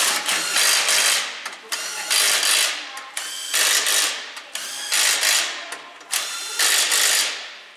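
Impact wrench driving the lug nuts onto a steel wheel being mounted on a car, in five loud bursts of under a second each, about a second and a half apart.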